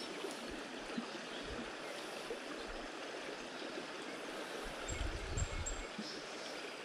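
Shallow creek water running over rocks: a steady, even rush. A brief low rumble rises about five seconds in.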